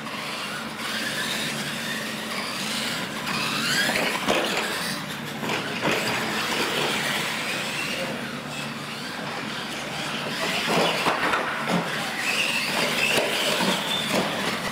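Electric radio-controlled monster trucks racing across a concrete floor: their motors and gearboxes whine, the pitch rising and falling as they speed up and slow down.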